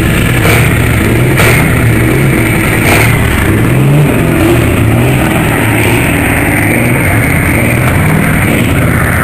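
Loud rock music mixed with the running of heavy trucks' diesel engines, with no break or sudden event.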